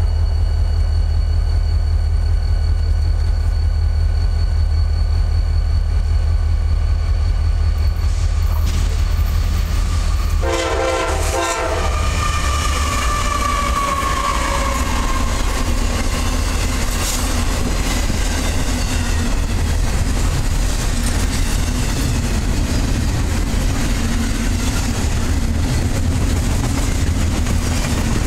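CSX double-stack intermodal freight train approaching behind its diesel locomotive with the horn sounding. About ten seconds in the horn blows loud and close, then drops in pitch as the lead locomotive passes. The container cars then roll by with a steady rumble and clickety-clack of wheels on the rails.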